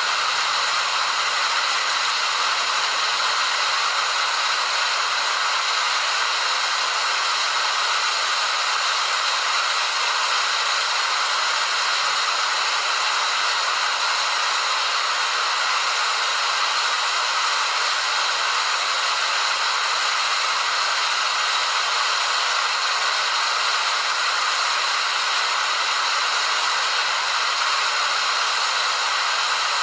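Waterfall: a steady rushing hiss of falling water, unchanging throughout, with its weight in the upper range and little low rumble.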